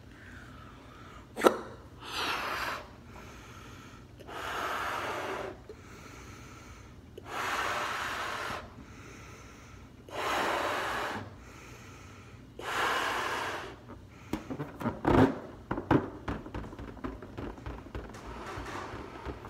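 A clear latex balloon being blown up by mouth: five long breaths into it, about one every two and a half seconds, after a single sharp snap near the start. Toward the end comes a run of quick crackles and taps as the inflated balloon is handled.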